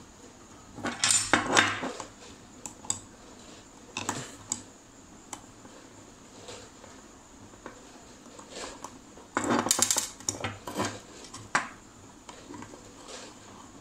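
Screwdriver working the screws of an aluminium motorcycle carburettor while it is taken apart: metal clinks and scrapes come in two clusters, about a second in and again around nine to eleven seconds in, with scattered light ticks between.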